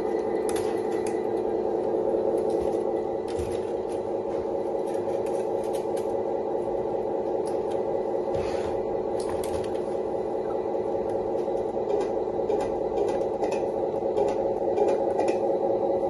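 RC truck's electronic engine-sound module idling through its small onboard speaker with a steady hum, the simulated truck engine settled to idle. Light clicks and taps from the model being handled.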